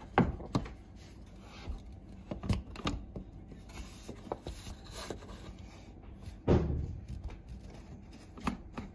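Scattered knocks, clicks and rubbing as a tool works at a hanger fastener under the edge of a wooden pocket door, with the loudest knock about six and a half seconds in.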